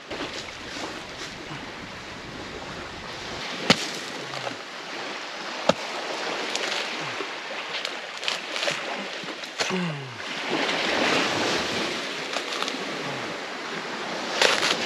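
A coconut being husked on a sharpened wooden stake: a few sharp knocks and the tearing of fibrous husk as it is levered apart, over a steady wash of surf.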